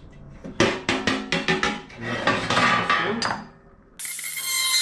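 Metal parts of a sandwich press clinking and clattering as they are handled and pried off, with short ringing knocks. About four seconds in, a loud, high whir starts abruptly and runs steadily.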